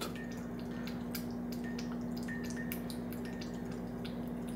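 A cat lapping water from a mug: a quick run of wet tongue flicks, about three a second. It drinks messily and splashes water out of the mug.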